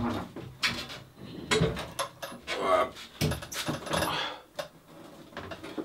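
Irregular metallic clunks and rattles: a stripped Vespa PK 50 steel frame and its loose parts being handled and shifted about on a workbench.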